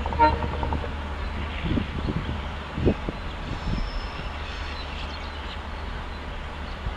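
EMD WDP4 diesel locomotive running with a steady low engine rumble. The tail of its horn fades out just after the start, and a few heavy knocks come about two to three seconds in.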